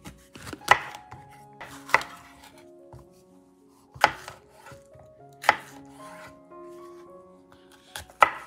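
A knife chopping down onto a cutting board in slow, single strokes, about five sharp knocks spaced one to two seconds apart, with a quiet music bed underneath.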